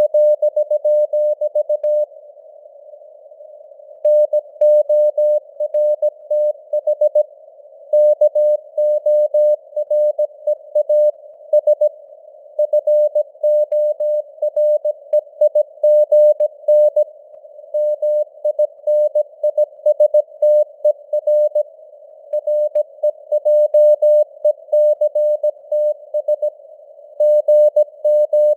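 Morse code (CW) sent at 17 words per minute: a single mid-pitched tone keyed on and off in dots and dashes, with longer gaps between words. Under it runs a narrow band of simulated radio-receiver hiss.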